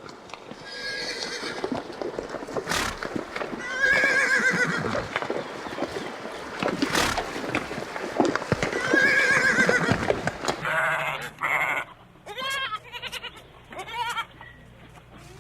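Farm animals calling: a horse whinnying three times in long, wavering calls, then, after a cut about ten seconds in, a run of short bleats from goats or sheep.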